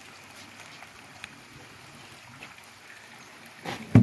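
Steady faint trickle of water in a garden koi pond, with a few faint ticks. Near the end comes a sudden loud thump and rustle as the plastic fish bag is handled at the water.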